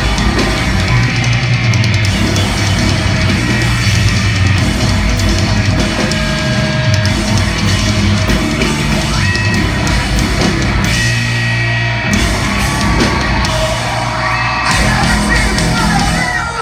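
Live rock band playing at full volume: distorted guitars and a pounding drum kit with yelled vocals. The music stops near the end.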